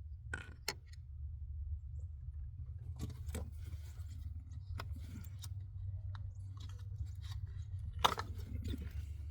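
Scattered clicks, light knocks and scrapes of hands and tools working on an ignition coil under the hood, the sharpest click about eight seconds in, over a steady low rumble.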